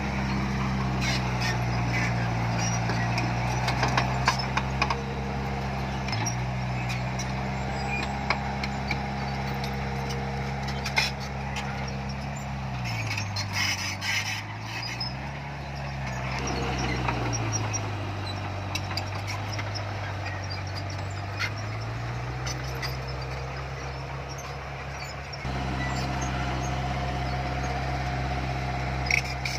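Heavy diesel engine of earthmoving machinery running under load, its revs dropping about midway and building back up a few seconds later, with scattered metallic clanks.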